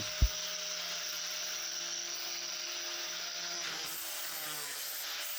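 Electric angle grinder running steadily with a paper disc fitted, giving a steady motor whine. There is one sharp knock just after the start, and about four seconds in the tone shifts and a faint high whistle comes in.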